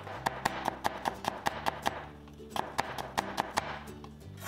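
Chinese cleaver chopping carrot into fine julienne strips on a cutting board: quick, even knocks of the blade on the board, about five a second, in two runs with a short pause between them.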